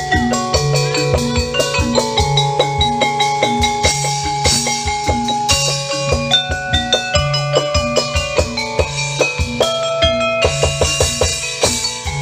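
Instrumental background music: a melody over a steady drum beat.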